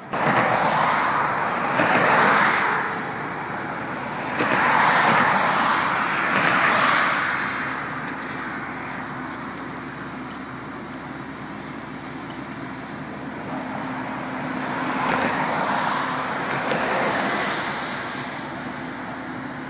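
Highway traffic passing close by: vehicles go past one after another with a rushing tyre-and-wind noise that swells and fades, loudest over the first seven seconds and again about fifteen seconds in.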